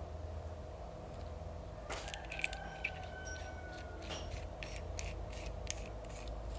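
Steel parts of a D20–D24 diesel fuel injector being handled and fitted together by hand: a few sharp metal clinks about two seconds in with a brief ringing tone, then a quick series of light ticks as a part is screwed on.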